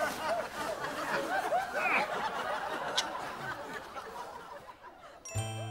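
Studio audience laughing at a sitcom punchline, the laughter dying away over about five seconds. Near the end, soft music with chiming, bell-like notes starts abruptly.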